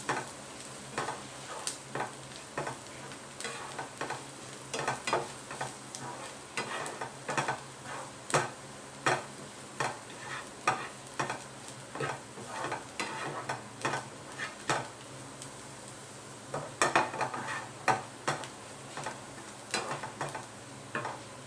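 Wooden spatula stirring and scraping fried onions and spice powders around a frying pan, about two strokes a second, over a steady sizzle of the hot oil.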